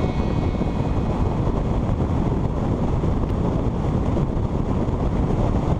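Steady wind rush buffeting the microphone of a camera riding on a moving motorcycle, with the bike's road and engine noise mixed in underneath.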